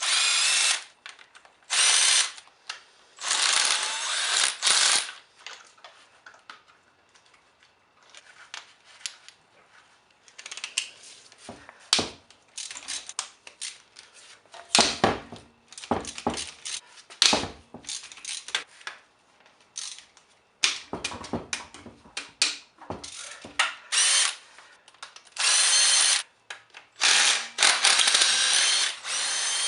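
A power tool spinning in short bursts with a whining motor, taking fasteners off a Honda B18C1 engine during its teardown, with short clicks and clanks of hand tools between the bursts.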